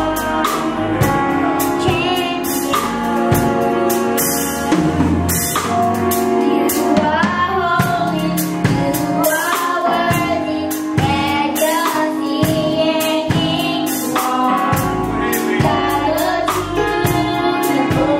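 Two young girls singing a gospel song into microphones, over accompaniment with a steady drum beat.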